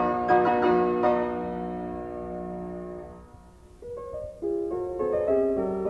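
Piano theme music: chords struck and left to ring, fading away, then a new phrase of notes begins about four seconds in.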